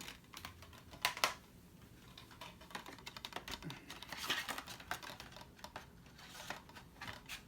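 A plastic DVD case and its disc being handled: a few sharp clicks about a second in, then light clicking and rustling.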